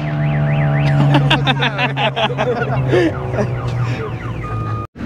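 Car alarm cycling through its tones: a rapid warbling siren, then fast repeated chirps and wavering notes, over a steady low drone. The sound cuts off suddenly near the end.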